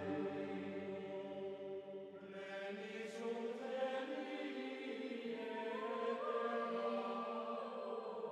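Background music of slow, held chanting voices over sustained drone-like tones, the pitch shifting slowly.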